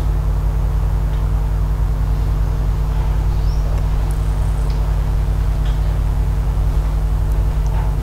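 Steady loud machine hum with several fixed low tones, like a motor or engine running continuously nearby, with a couple of faint high chirps about three and a half seconds in.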